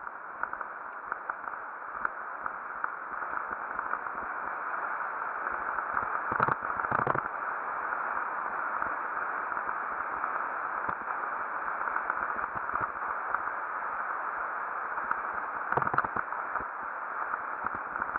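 Mountain bike riding fast down a dirt singletrack, heard from a helmet camera: a steady rush of wind and tyre noise with scattered rattles and knocks over bumps, louder ones about six seconds in and again near the end.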